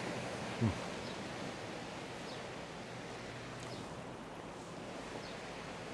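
Steady background hiss of open-air ambience, with one short falling hum from a voice about half a second in.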